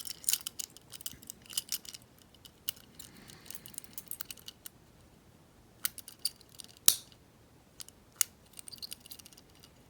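Lock pick working inside an old padlock: scattered small metallic clicks and scrapes, with one sharper click about seven seconds in.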